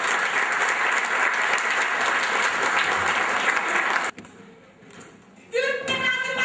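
An audience clapping in dense, steady applause that stops abruptly about four seconds in. After a brief hush, singing begins near the end.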